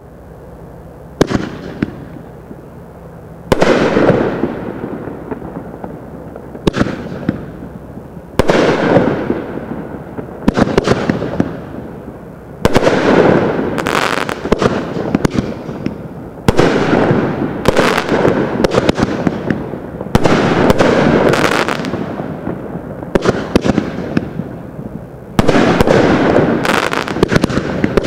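Aerial fireworks from a Crackling Brocade and King's Crown Gold Brocade combo firing shot after shot, about a dozen in all at irregular intervals. Each sharp bang is followed by a few seconds of dense crackling that fades away.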